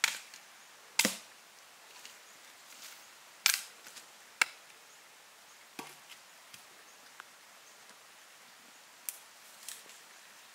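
Chopping: sharp, irregular knocks, four strong ones in the first half and lighter, scattered taps after.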